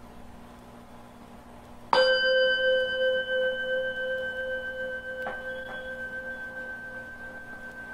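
Singing bowl struck once about two seconds in, ringing on with a steady, layered tone that slowly fades. Two faint ticks sound a few seconds after the strike.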